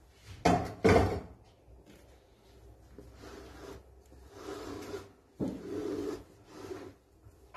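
A silicone spatula scrapes and rubs against a baking dish as meringue is spread over a tart. Two louder knocks or scrapes come about half a second and a second in, then softer scraping.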